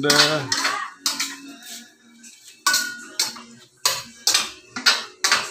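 Metal spoon scraping and knocking against a stainless steel wok as chicken pieces are stirred: a series of separate scrapes and clanks.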